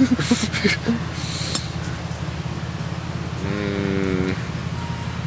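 Beer poured from a bottle into a shoe, splashing and hissing briefly near the start. A single held vocal note sounds about three and a half seconds in, over a steady low hum.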